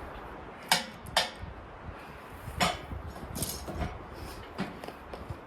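A series of sharp knocks and clanks, two close together about a second in, another a moment later and fainter ones after, from a heavy log being handled and set onto the sawmill's bed.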